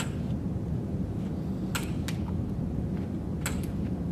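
A walking cane tapping as it is planted on a carpeted floor: sharp clicks roughly every one and a half seconds, several in close pairs, over a steady low hum.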